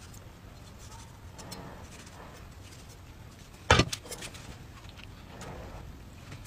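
A steel cleaver knocks down once, sharp and loud, onto a plastic cutting board a little past halfway, followed by a couple of lighter taps. Around it are faint soft sounds of a knife slicing into tomato.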